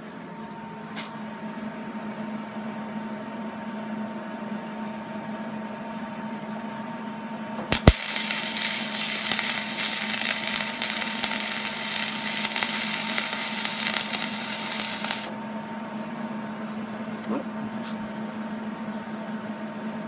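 Wire-feed welder arc crackling and sizzling on steel for about seven seconds. It starts with a sharp strike about eight seconds in and cuts off suddenly. A steady hum runs underneath.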